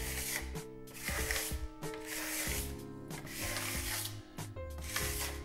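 Trowel rubbing gently over decorative plaster on a wall in about five repeated strokes, each a short scraping hiss, smoothing the partly set material. Background music with held notes plays underneath.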